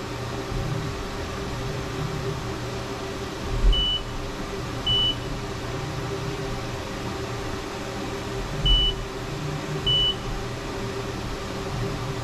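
Haas VF2 SS CNC vertical mill running an automatic corner-probing cycle with a steady machine hum. Four short high beeps come in two pairs, each pair opening with a low thump, about four and nine seconds in, as the spindle probe touches off the block's two sides.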